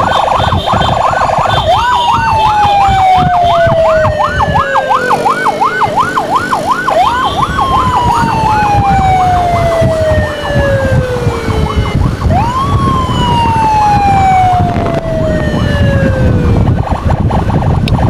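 Emergency vehicle sirens: a fast yelp warbling about four times a second, which stops about seven seconds in, over a wail that jumps up sharply and then falls slowly for about four seconds, three times. A steady low rumble of engine and wind noise runs underneath.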